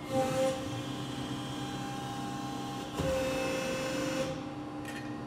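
Cincinnati 60CBIIX4 CNC press brake running through a program: a steady hum with brief rises in level and tone at the start and again about three seconds in as the machine cycles.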